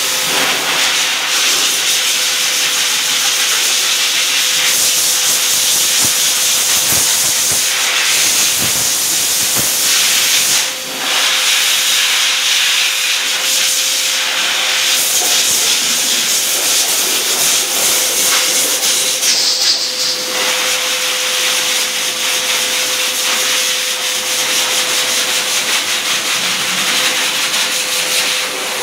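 Hose-type dog grooming blower dryer blasting air onto a wet dog's coat: a loud, steady rush of air with a faint steady tone underneath. It comes on abruptly at the start and dips briefly about eleven seconds in.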